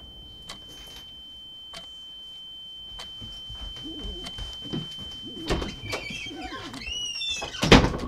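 Designed film sound effect: a steady high ringing tone with scattered clicks while a low wavering noise slowly grows. Near the end the ringing gives way to wavering, gliding pitches, then a sudden loud hit.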